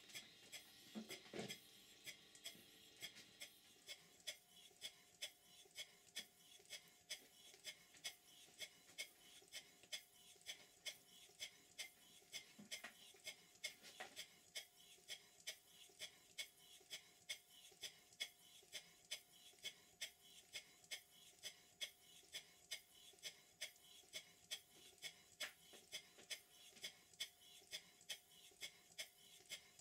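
Stuart Models 5A model steam engine running slowly while it is being run in, giving a faint, even beat of about two soft exhaust puffs or clicks a second.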